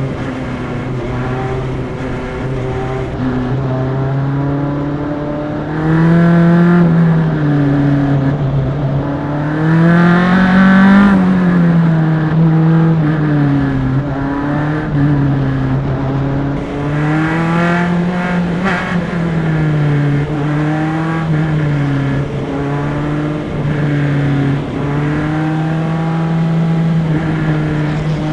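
Single-seater race car's engine heard onboard at pace-lap speed, running at moderate revs. Its pitch climbs and falls back several times with the throttle, most strongly about six, ten and eighteen seconds in.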